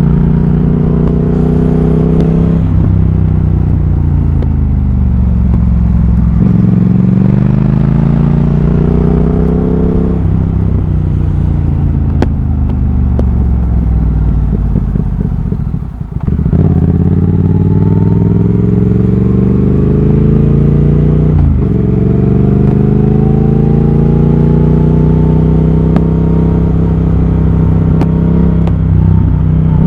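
2020 Triumph Thruxton RS 1200 cc parallel-twin engine through a British Customs GP slip-on exhaust with X-pipe, under way. The revs climb in long rising runs, and the pitch drops sharply at each gear change, five or six times. About halfway through it goes briefly quieter as the throttle closes, then pulls up through the revs again.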